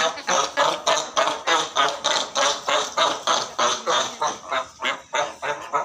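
Cape fur seals barking at each other in a fight: a fast, unbroken run of harsh, honking calls, about five a second.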